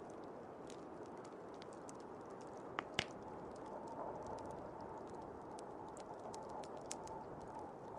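Wood fire crackling with scattered small pops, two sharper pops about three seconds in, over a steady rush of blizzard wind. A faint steady whistle joins about halfway through.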